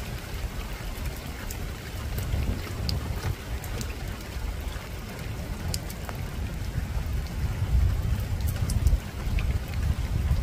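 Steady rain falling on a rooftop, with scattered individual drops tapping sharply and a continuous low rumble underneath.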